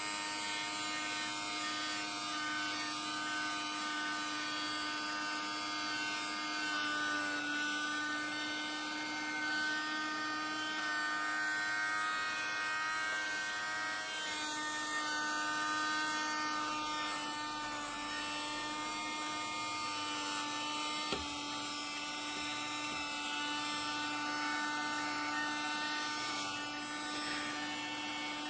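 Vacuum cleaner motor running with a steady whine, its pitch wavering slightly now and then. There is a single click about three quarters of the way through.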